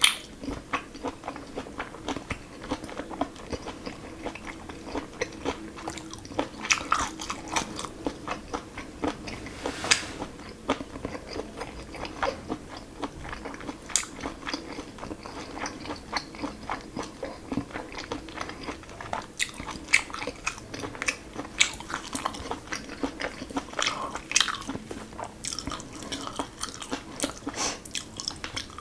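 Close-miked eating: a person biting and chewing food with many quick, sharp mouth clicks, busiest in a few clusters.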